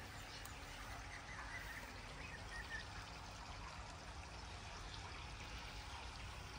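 Light rain falling steadily on okra leaves, a faint, even hiss.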